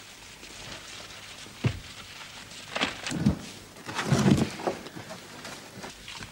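Scuffling and bumping of people moving about in a cramped wooden shed: a sharp knock about a second and a half in, then two louder bouts of scraping and shuffling around three and four seconds in.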